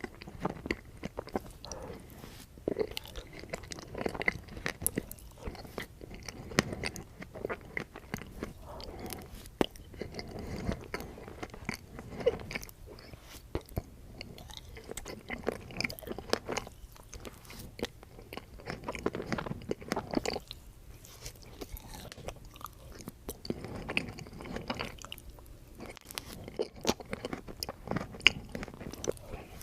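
Close-miked biting and chewing of a Dairy Queen Choco Brownie Extreme Blizzard, with many short, sharp, irregular clicks and crunches from the mouthfuls.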